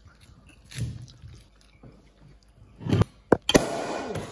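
Champagne bottle being opened by hand: quiet handling while the cork is worked loose, then a sharp pop a little over three seconds in as the cork comes out, followed by a hiss.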